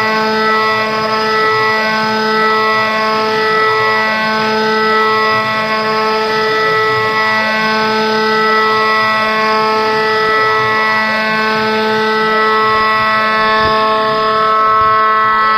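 CNC router spindle with an end mill cutting a circular pocket in metal on an adaptive-clearing toolpath: a loud, steady whine with overtones that dips and swells about every second and a half as the cutter loops round.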